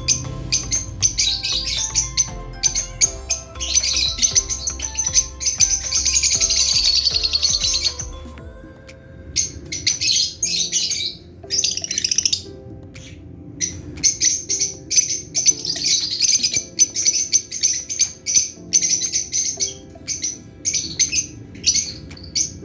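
Lovebirds chattering in fast runs of high, sharp chirps, with an unbroken stretch of chatter a few seconds in and a couple of short pauses around the middle.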